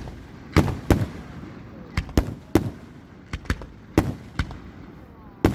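Fireworks going off in a rapid, irregular series of sharp bangs, about a dozen in a few seconds.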